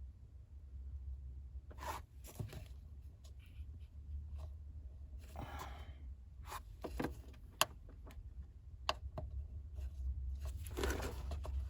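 Scattered light clicks and knocks, with a brief scraping rustle about halfway through, from hands taking off the fuel pump access cover under a car's rear seat, over a steady low hum.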